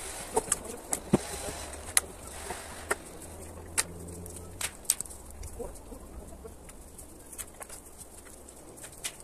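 Dry deadwood branches knocking and clattering against each other and the trailer as a long branch is carried over and laid on the load: a string of sharp, uneven wooden knocks, most of them in the first half.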